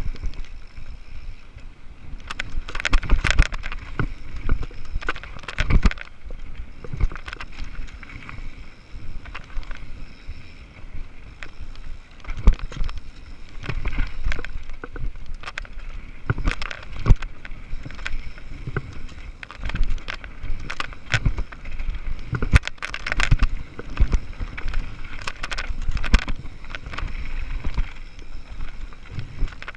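Mountain bike descending a dirt trail at speed: a steady rush of wind on the microphone and tyre noise, broken by frequent irregular clattering knocks as the bike and its suspension rattle over bumps and roots.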